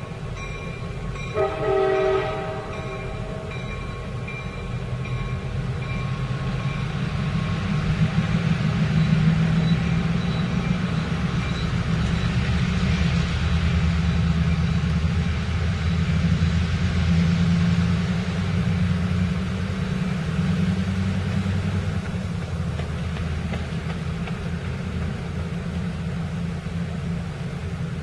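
A diesel locomotive horn gives one short blast about two seconds in, over the repeated ringing of a grade-crossing bell. Then the work train's diesel engine rumbles louder as the locomotive and its flatcars loaded with concrete ties roll past, easing off somewhat in the last third.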